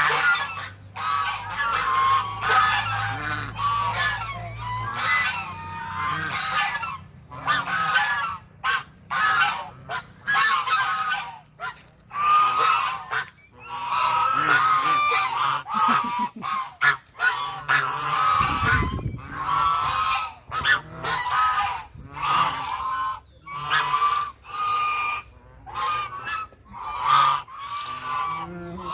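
A flock of waterfowl calling over and over: loud, nasal honking calls that overlap, with short breaks between bursts.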